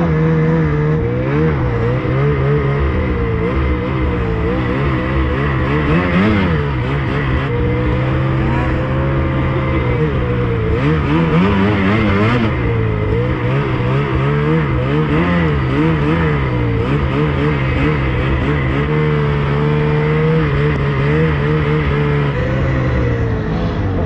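Snowmobile engine running and revving up and down, its pitch rising and falling continually as it is ridden through deep snow, heard from the rider's seat.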